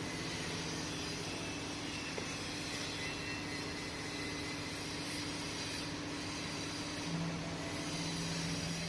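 Steady hum and whir of a running electric motor, with a low tone in it that grows stronger about seven seconds in.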